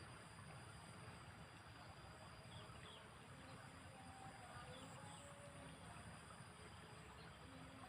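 Faint outdoor ambience: a steady high insect drone with a few faint, short bird chirps.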